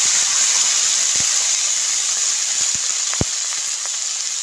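Cauliflower florets sizzling in hot oil in a kadai: a steady, high hiss that eases slightly as the pan cools under the fresh vegetables. A few short clicks come through, the sharpest about three seconds in.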